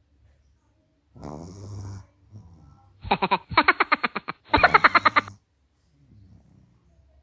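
Sleeping pug snoring, one snore about a second in and fainter ones after. The loudest sound is a run of rapid pulses, about six to eight a second, in two bursts between about three and five seconds in.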